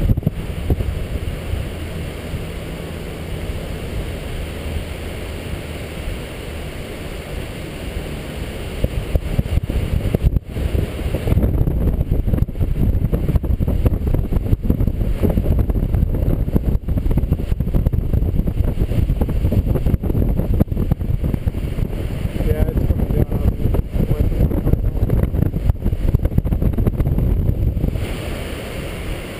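Wind rushing over the microphone of a harness-mounted camera in paraglider flight: a steady low rumble that turns louder and gustier about eleven seconds in and eases near the end.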